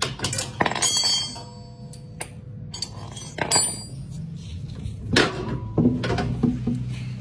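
Metal tools and parts being handled against the mower's steel frame and blade: a series of clinks and knocks, a few leaving a brief metallic ring, over a low steady hum.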